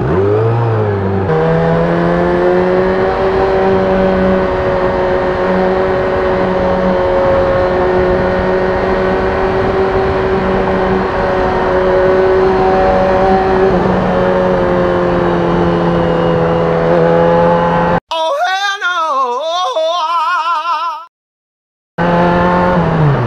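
Motorcycle engine on the move: it picks up about a second in and then runs at a steady pitch while cruising. Near the end it gives way to a few seconds of a wavering, warbling tone, then cuts to silence for about a second before the engine returns.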